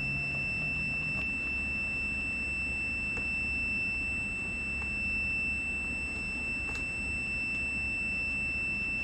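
AMES digital multimeter's continuity beeper sounding one steady, unbroken high tone: the snowmobile's key switch is showing continuity. A few faint clicks sound over it.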